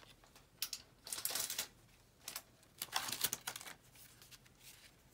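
Paper and card rustling in several short bursts as card pieces are handled and slid out of a paper pocket.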